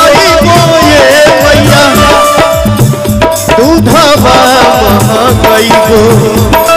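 Male singer performing a Bhojpuri devotional song (a bhajan to the Mother Goddess) live with a band, over a steady drum rhythm.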